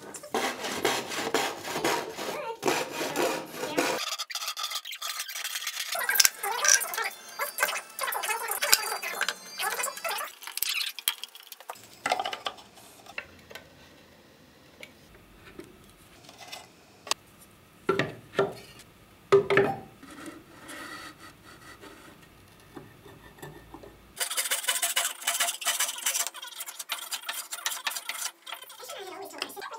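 Hand woodworking tools on softwood, in several short cuts: rasping strokes at first, a quieter stretch with scattered knocks and taps around the middle, and hand-plane strokes on a board end near the end.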